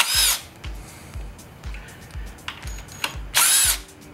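3/8-inch electric impact driver with a 10 mm socket run in two short bursts, at the start and about three and a half seconds in, undoing a bolt on the front turbo oil return line; the motor's whine rises and falls in each burst. Background music with a steady beat underneath.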